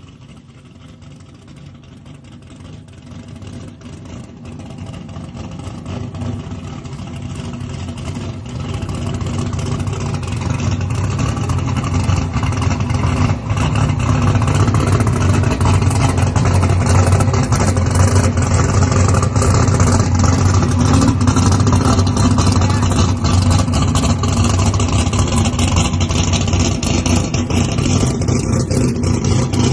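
Turbocharged LS V8 race engine running on VP M1 methanol, a steady deep note with little change in pitch. It grows much louder over the first dozen seconds or so, then holds at that level.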